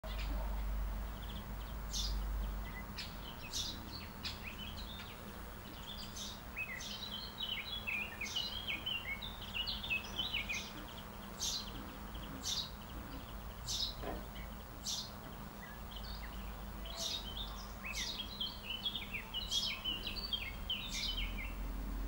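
Small songbirds singing: repeated high, quick chirps and twittering runs of notes, over a steady low background rumble.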